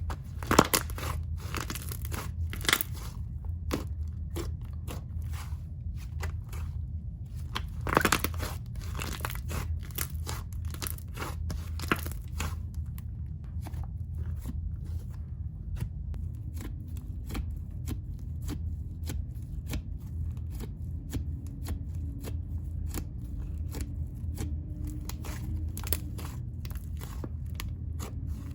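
Slime being stretched, poked and squished by hand, with many small sticky clicks and pops. A few louder snaps come about half a second in and around eight seconds in, over a steady low hum.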